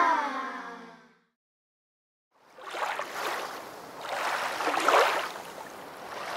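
A sustained tone with a slowly falling pitch fades away in the first second. After a short silence, a rushing, water-like noise swells and ebbs, loudest about five seconds in.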